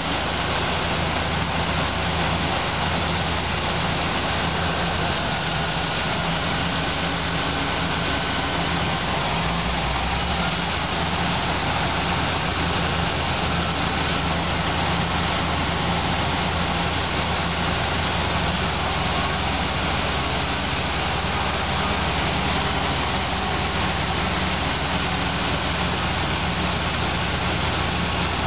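Diesel engines of crawler bulldozers running steadily while pushing large stone blocks: a constant low engine drone under a dense, even mechanical noise.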